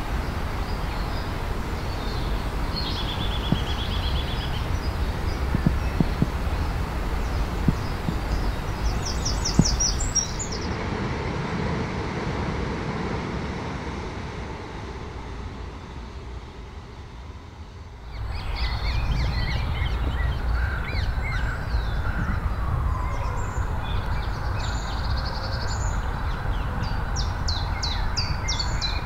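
Outdoor birdsong: several birds calling with short chirps and trills over a steady low background rumble. The background dips and changes abruptly about two-thirds of the way through, after which more calls follow.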